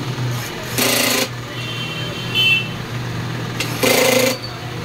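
Electric screwdriver whirring in two short bursts about three seconds apart, turning the screws of an amplifier's metal cover.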